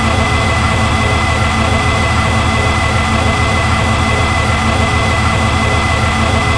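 Loud, steady electronic noise drone from an experimental sound-art piece: a deep hum layered with many held tones and a sustained high tone, with no rhythm or change.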